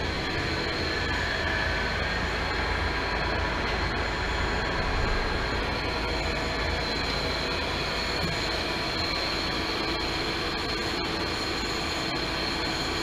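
Clausing Colchester Mascot 18 x 60 variable-speed gap-bed lathe running with no cut, its geared headstock and spindle drive giving a steady whir with a constant high whine.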